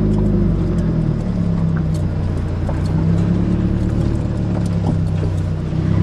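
A vehicle engine running steadily at idle, with its low drone wavering slightly in pitch.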